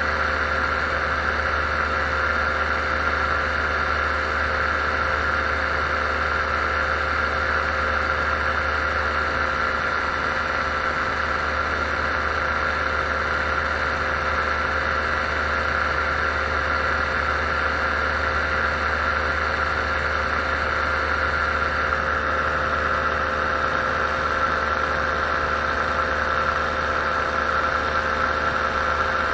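Paramotor engine and propeller running steadily at constant power in level flight: an even drone with a steady high tone on top.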